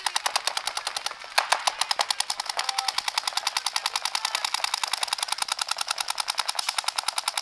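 Paintball markers firing a rapid, even stream of shots, with a few louder shots about one and a half and two seconds in.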